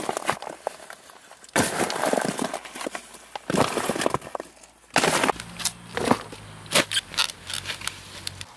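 Shovelfuls of soil thrown into a grave, about five loud rushing, crunching hits of earth landing, a second or so apart. A low steady hum comes in about halfway.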